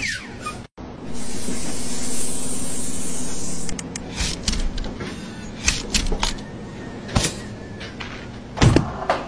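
A steady, high-pitched hiss lasting about two and a half seconds, then scattered light taps and clicks of handling.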